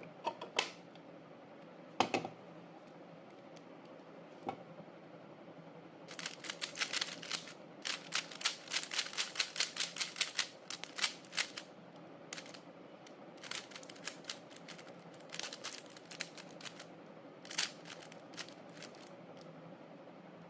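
Rapid clicking of a GAN 12 Maglev 3x3 speed cube's layers being turned: a few single clicks, then a dense run of fast turns starting about six seconds in, then scattered groups of turns.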